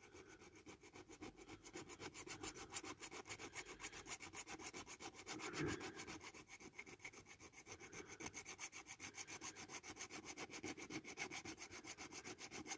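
A small flat file rasping along the casting line of a diecast metal toy pillar box in quick, even strokes, taking the raised seam down before paint. Faint.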